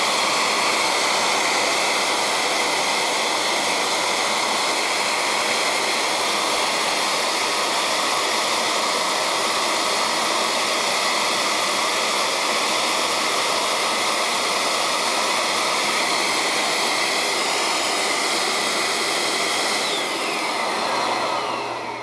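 Dirt Devil Power Max Pet bagless upright vacuum's motor running steadily with its exhaust HEPA filter taken out, a loud rush of air with a steady whine; it blows strong, hot exhaust. Near the end it is switched off and winds down, the whine falling in pitch.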